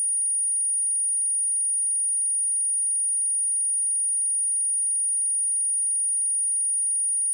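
A pure 9577 Hz sine-wave test tone, one steady high-pitched whistle held at a constant level.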